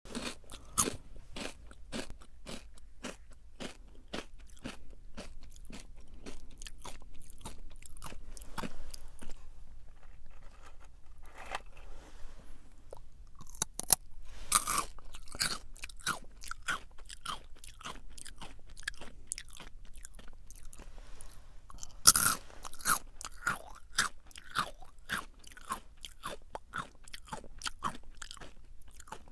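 Close-miked crunching of Jagariko, crisp stick-shaped potato snacks, being bitten and chewed: a quick run of crisp crunches, with a few sharp, loud bites about 14 and 22 seconds in, each followed by more chewing.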